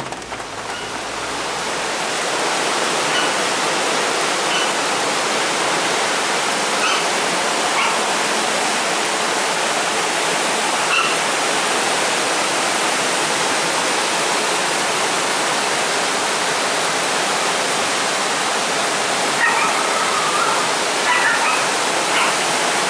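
The steady rush of a flood-swollen, muddy river running in rapids.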